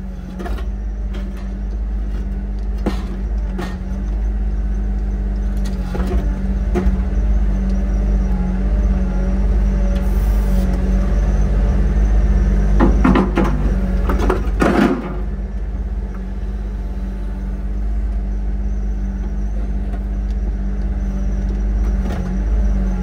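SANY excavator's diesel engine running under hydraulic load, heard from inside the cab, working harder through the middle of the stretch as the arm swings and digs. A cluster of knocks and rattles comes a little past halfway, with scattered single knocks before it.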